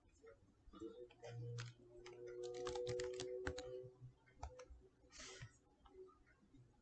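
Faint computer keyboard typing, a run of quick keystrokes densest about two to three and a half seconds in, with scattered single clicks either side.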